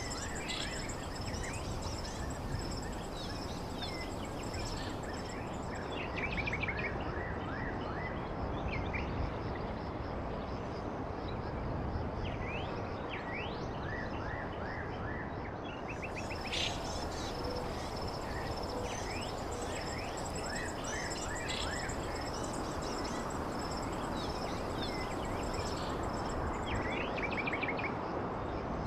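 Outdoor ambience: a steady rushing noise with a high, steady insect trill and bursts of quick bird chirps throughout.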